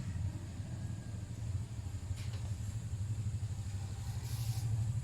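A steady low mechanical hum, with a brief soft hiss or rustle a little after four seconds.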